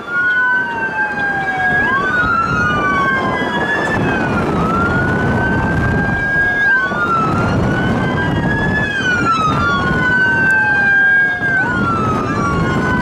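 Two sirens wailing, each rising and falling slowly in pitch, out of step with each other, over a loud steady roar of the tornado.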